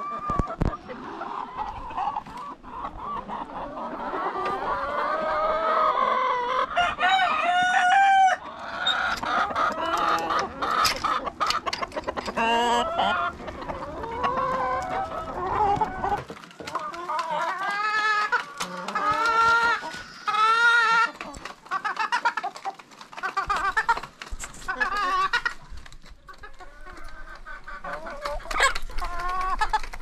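A flock of chickens clucking and calling over one another, with a rooster crowing among them.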